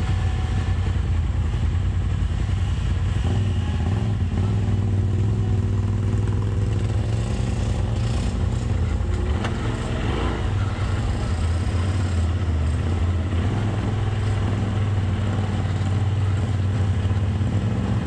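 Polaris RZR Turbo side-by-side's turbocharged engine running along a trail, heard from inside the cab, its engine note shifting up and down a few times as the throttle changes.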